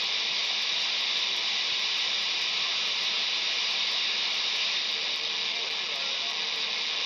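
Quansheng UV-K5 handheld radio's speaker hissing with steady receiver static while tuned around the CB / 10-metre band, no station coming through clearly: a sign of the handheld's weak receive sensitivity on these bands.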